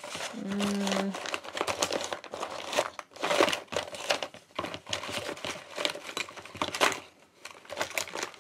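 Hands rummaging through pens and stationery, with continuous irregular rustling, crinkling and clicking. A short hummed "hmm" sounds about half a second in.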